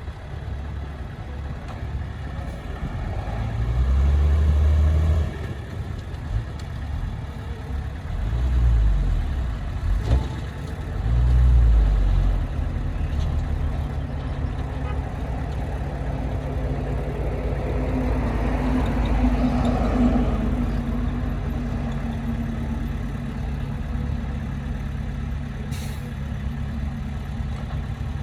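Heavy construction-machine diesel engine running with a low rumble. It surges louder three times in the first half, and a noisier spell with a steady hum follows past the middle.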